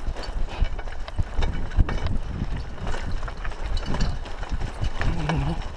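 Mountain bicycle rattling and knocking as it rolls over a bumpy dirt track, with irregular clunks over a steady low rumble.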